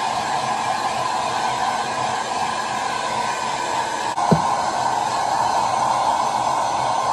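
Hair dryer blowing steadily on a wet dog's coat. A short knock sounds a little over four seconds in.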